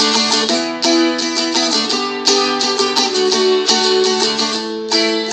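Seagull Merlin, a small four-string fretted dulcimer, strummed in a steady rhythm of chords, the chords changing every second or so over a steady low drone string.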